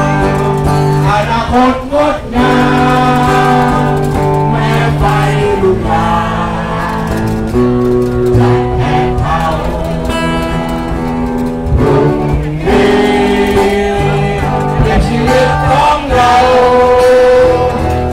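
A song with singing over guitar accompaniment, with long held sung notes.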